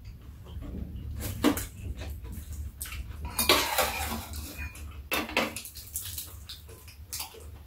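Metal spoon and chopsticks clinking and scraping against bowls on a metal tray during a meal, a few separate clinks with the loudest clatter about three and a half seconds in.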